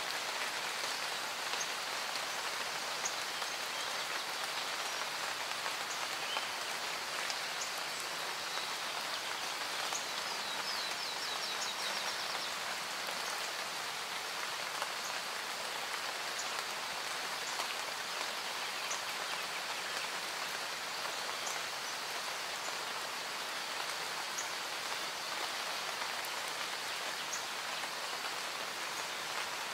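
Steady rain falling, with scattered individual drops ticking. A brief high trill sounds about ten seconds in.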